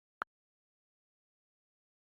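Near silence, broken once by a single short, sharp click about a quarter second in.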